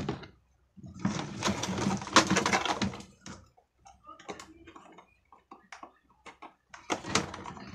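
A clattering burst of handling noise about a second in, then scattered light clicks and taps, and more clatter near the end.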